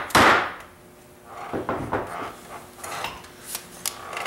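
Metal bar clamps being worked on a wooden frame: a loud clatter of metal against wood right at the start, then several lighter clanks and knocks as the clamp is set and tools are handled on the bench.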